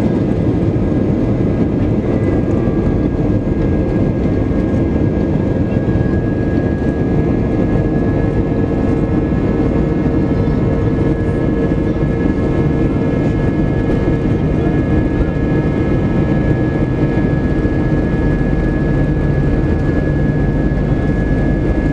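Airbus A320's IAE V2500 turbofan engines heard from inside the cabin over the wing: a steady loud whine with a high tone over a deep rumble as the airliner rolls on the runway for takeoff.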